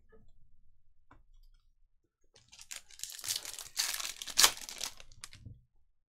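Foil trading-card pack being torn open and crinkled by hand: a dense run of crackling and tearing that starts about two seconds in and lasts about three seconds, loudest near the end. Before it, faint soft handling of cards.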